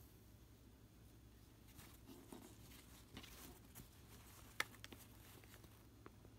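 Faint rustling of fabric and thread being drawn through cloth during hand smocking stitches, with one sharp small click about four and a half seconds in and a few softer ticks after it.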